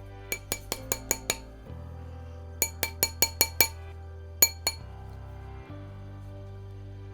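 Sharp, ringing metal-on-metal taps in quick runs: six, then six more, then two, as the brass and silver ring band is hammered into shape. Background music plays under them.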